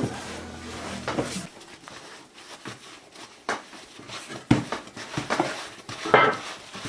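Hands shaping balls of bread dough on a floured wooden table: soft, irregular slaps and knocks of palms and dough against the board, with a louder clatter about six seconds in. A tail of background music stops about a second and a half in.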